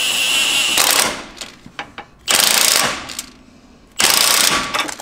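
Impact wrench running a flag nut onto the track bar's axle-side bolt: a steady whine for the first second, then two short hammering bursts, about two and a half and four seconds in.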